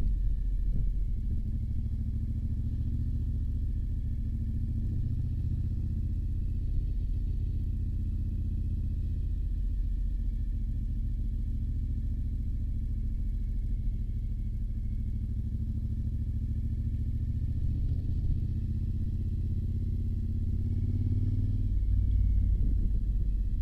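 Motorcycle engine running steadily under way, with a low rumble; the engine note rises and gets louder near the end.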